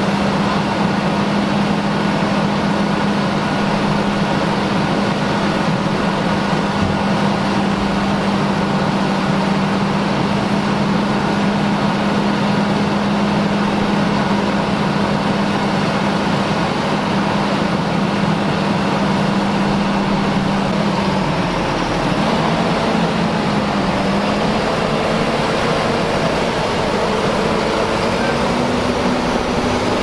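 New Holland T8 tractor's engine running steadily, then rising in pitch from about two thirds in as the tractor pulls away with its tipping trailer.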